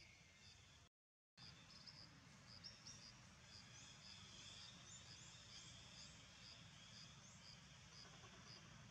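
Faint outdoor ambience: an insect chirping steadily about twice a second, with a few brief high chirps in the middle. The sound drops out completely for about half a second, around a second in.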